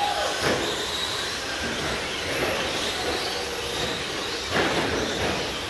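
Radio-controlled short course trucks racing: a steady noisy drone of motors and tyres with a faint high whine. It turns suddenly louder about three-quarters of the way through, as a truck comes close.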